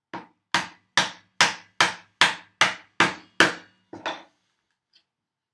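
Wooden mallet striking a mortise chisel, chopping a mortise in a wooden beam: about nine sharp, even blows at roughly two and a half a second, then two lighter taps near four seconds in.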